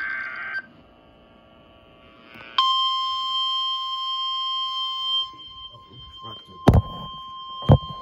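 The tail of a NOAA weather radio SAME data burst, a harsh warbling screech, cuts off. About two seconds later the steady 1050 Hz weather radio warning alarm tone starts and holds, played through the receivers' small speakers. Two sharp knocks come near the end.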